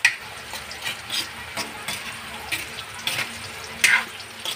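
Metal spatula stirring and scraping potato and carrot pieces around a metal wok, in uneven strokes, the loudest near the end, over a low sizzle of the vegetables frying in oil.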